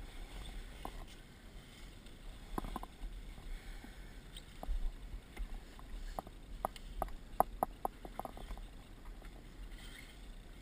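Sailboat under way: a steady low rumble of wind and water, with scattered sharp clicks and knocks of handled gear, a quick run of them about seven seconds in.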